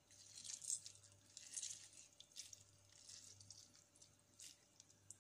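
A lemon half squeezed by hand over raw chicken pieces in a bowl, the juice dripping and squishing onto the meat in a few faint, short spurts about a second apart.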